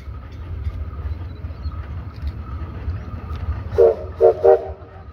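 Steam whistle of the Victorian Railways Y-class locomotive Y112 giving three short toots near the end, over a steady low rumble.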